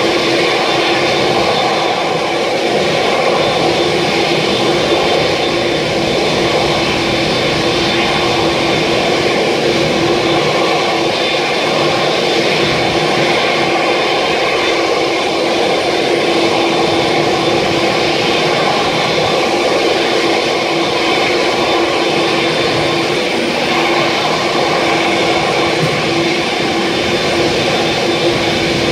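Boeing 787-8's two GEnx-1B turbofan engines running at idle, a loud, steady jet whine over a constant rushing drone.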